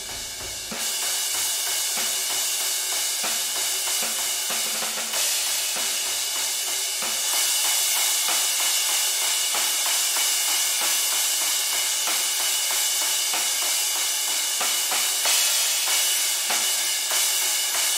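Multitrack drum recording playing back through its overhead and room microphones: mostly cymbals and hi-hats with snare hits and little low end. It grows louder and brighter about a second in as an EQ plugin conforms its tone to a reference curve.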